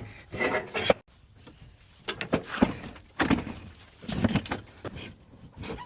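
Irregular thumps and scrapes from a heavy old HVAC unit being handled and shifted, in separate bursts with short pauses between them.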